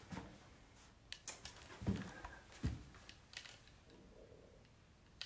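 Faint scattered clicks and taps, with two soft low thumps about two and three seconds in: a person moving about and handling things near the microphone.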